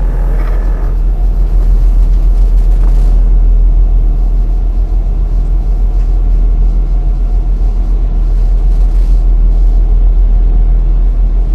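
Sound-designed sci-fi mothership drone: a loud, steady, deep rumble.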